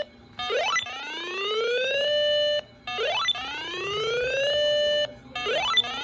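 Electronic whoop alarm from an emergency alert receiver, signalling an incoming warning: three rising whoops, each a quick upward sweep into a slower climbing tone that levels off and cuts out, repeating about every two and a half seconds.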